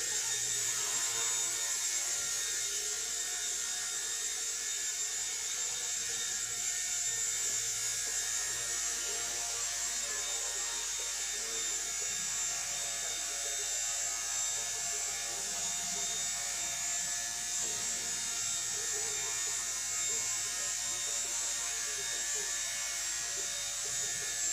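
Small indoor RC helicopter's electric motors and rotor blades running with a steady buzz as it hovers and flies.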